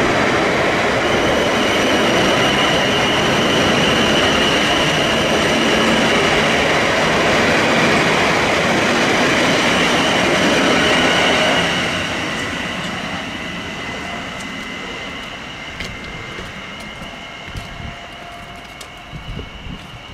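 South Western Railway electric multiple-unit train of Class 458 Juniper and Class 450 Desiro units running by: a loud, steady rumble of wheels on rails with a high whine over it. About twelve seconds in the noise drops away as the train clears, and a quieter, fading rumble is left.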